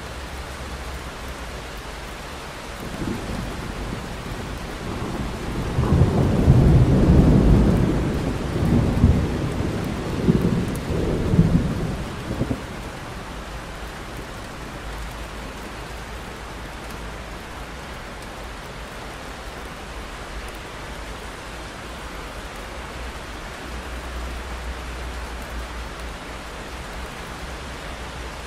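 Steady rain falling, with a roll of thunder that builds about three seconds in, is loudest a few seconds later, rumbles on in several further swells and fades out about twelve seconds in.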